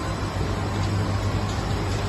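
Industrial microwave drying machine for black soldier fly larvae running: a steady mechanical noise with a low hum throughout.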